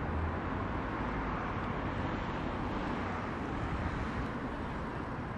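Steady outdoor street ambience: the low rumble of road traffic.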